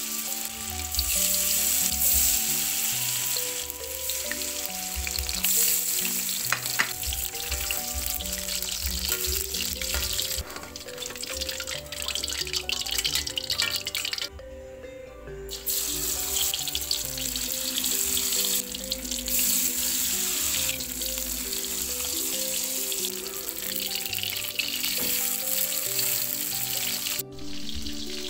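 Battered tempe deep-frying in a wok of hot oil, a steady sizzle that drops out briefly about halfway through, under background music.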